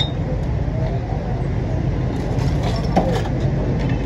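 Steady low rumble of street traffic with faint background voices, and one sharp click about three seconds in.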